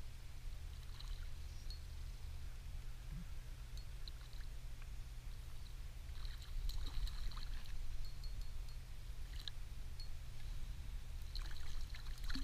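Water splashing and trickling in short spells as a hooked trout is reeled in and thrashes at the surface beside an inflatable boat. The busiest splashing comes just past the middle and again near the end, over a steady low rumble.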